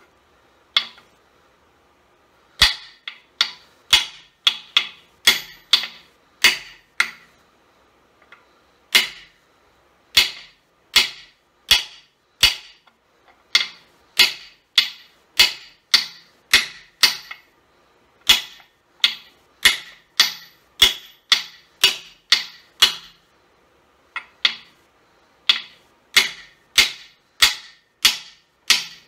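Metal hammer striking a socket held against a core (freeze) plug, driving the plug into an engine block: a long series of sharp metallic blows, roughly one to two a second, with a few short pauses between runs.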